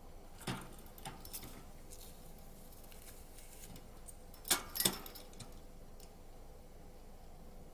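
Light clicks and rattles from a budgerigar's cage: a few small taps early on, then a louder cluster of two or three sharp clicks about four and a half seconds in.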